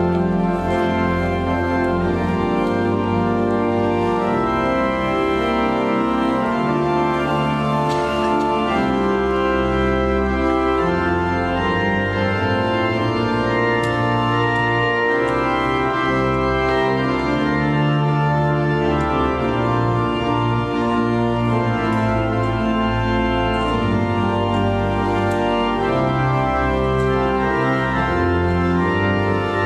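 Church organ playing a full, sustained chordal piece over a moving bass line: the closing voluntary at the end of the Mass.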